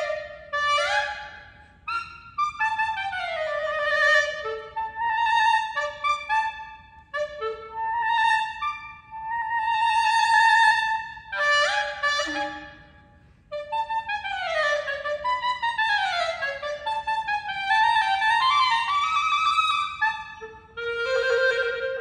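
Unaccompanied clarinet playing a fast, ornamented melody: quick runs and falling scale passages, a long held note about halfway through, then a brief pause before more descending runs.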